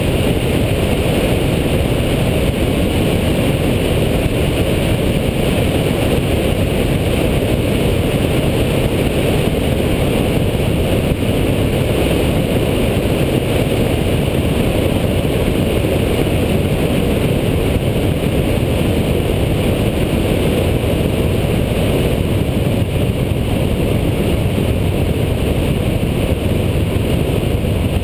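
Steady, unbroken roar of wind and engine noise picked up by a camera mounted on an aircraft in flight.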